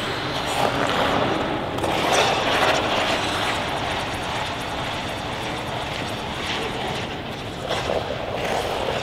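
Figure skate blades scraping and hissing across the ice as the skater pushes, spins and glides, over a steady rushing background noise. The scraping swells louder a couple of seconds in and again near the end.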